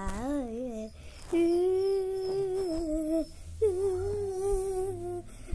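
A child's voice whining in long hums with the mouth closed: a wavering note at first, then two long held notes, the first about two seconds long.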